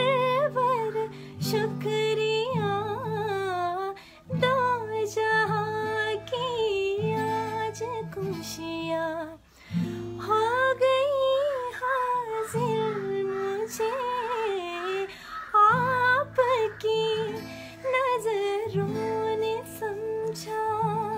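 A woman singing a Sinhala song in phrases with wavering, ornamented pitch, accompanied by acoustic guitar chords.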